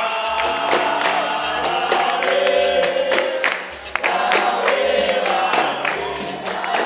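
Capoeira music: voices singing a capoeira song over an even low drum beat about twice a second, with the jingles of a tambourine-like pandeiro.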